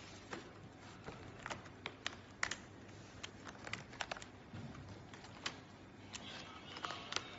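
Irregular light clicks and taps as a sheet of cut paper sticker labels is handled on the cutter's table, with paper rustling near the end as a cut label is peeled off the sheet.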